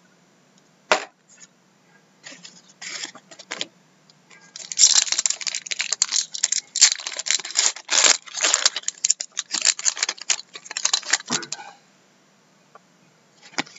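Foil wrapper of a 12-13 Upper Deck Black Diamond hockey card pack crinkling and tearing as it is opened by hand. A few scattered crackles come first, then a long stretch of dense rustling from about four and a half to twelve seconds in.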